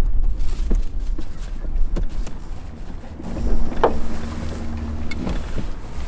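Wind rumbling on the microphone aboard a small boat, with scattered knocks and clicks. About halfway through, a steady low hum runs for about two seconds.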